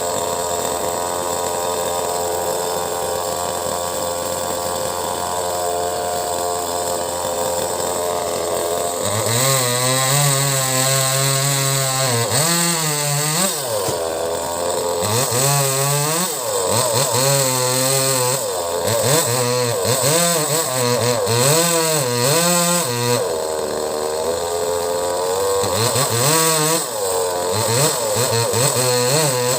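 Two-stroke chainsaw running at a steady pitch, then from about nine seconds in revving and dropping again and again as it cuts into mango wood.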